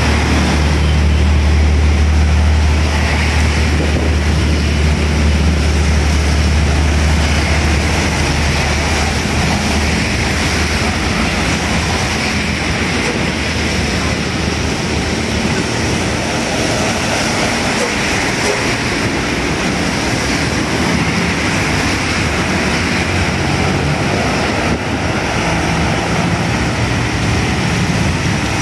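Steady road traffic on a wet road: cars, motorcycles and trucks passing, tyres swishing on the wet asphalt. A truck's deep engine drone dominates the first eight seconds or so, then the traffic wash carries on evenly.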